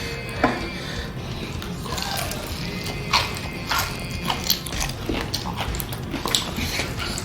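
Biting and chewing crispy fried chicken: a string of sharp, irregular crunches over a steady background.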